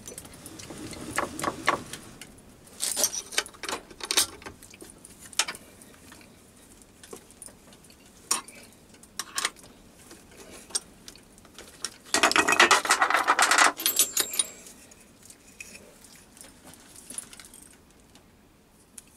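Metal clinks, knocks and rattles from unclamping a workpiece from a lathe angle plate: the clamp bar, nuts and threaded rods are handled, and the acetal block is lifted off. About two-thirds of the way through there is a dense metallic rattle lasting about two seconds.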